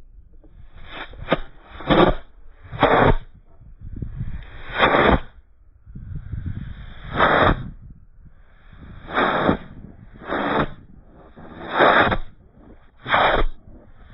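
Aerotech composite rocket motor chuffing: it lights and dies again and again, giving about ten short whooshing puffs at uneven gaps of one to two seconds. This is a misfire, the motor failing to keep a steady burn.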